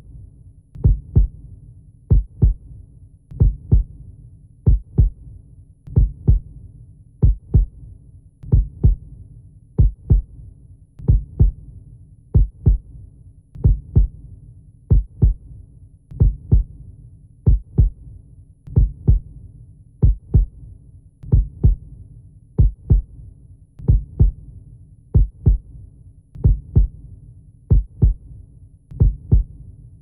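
A slow heartbeat on the soundtrack: paired low thumps, lub-dub, repeating evenly about once every second and a quarter over a faint steady low hum.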